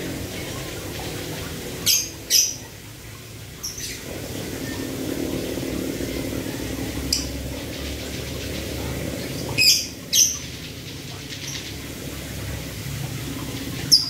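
Male lovebird giving short, sharp clicking calls, the 'ngetik' call likened to a lato-lato clacker, mostly in pairs about half a second apart, a few times over. The call is taken for the sign of a male in strong breeding condition.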